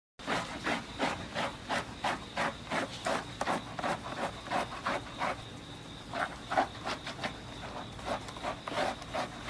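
Hands scrubbing a golden retriever puppy's wet, lathered fur, short rubbing strokes about three a second, with a pause a little past the middle before the strokes return more sparsely.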